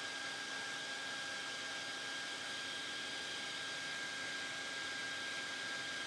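Steady rush of air from a small electric blower, with a thin high whine over the hiss, blowing across wet floral foam and the water in its tray to drive evaporation.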